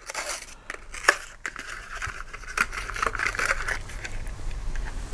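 A die-cast car's blister pack being opened by hand: the clear plastic blister crinkling, with irregular sharp clicks and crackles as it is pried and peeled away from the cardboard card.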